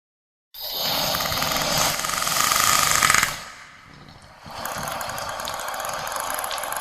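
Troodon dinosaur call sound effect, edited from animal recordings: two long, harsh, rasping calls, the first loudest near its end and the second starting about four and a half seconds in.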